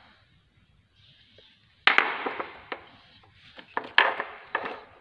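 Metal steering tie rod ends knocked and set down on a stone terrazzo floor: a sharp double clack about two seconds in, a few lighter clicks, and another loud clack about four seconds in.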